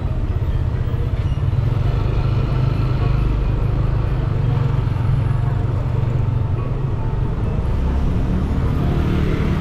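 Steady low rumble of a vehicle driving slowly through street traffic, with engine and tyre noise.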